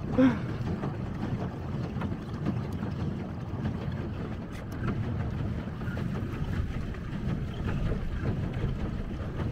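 Wind buffeting the microphone over the steady sound of water as a pedal boat is pedalled across a choppy lake. A short, loud pitched blip comes right at the start.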